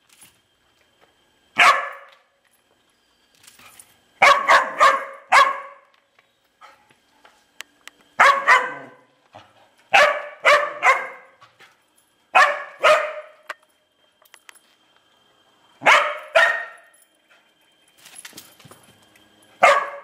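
Large black dog barking repeatedly at a turtle, in short runs of one to four barks with pauses between.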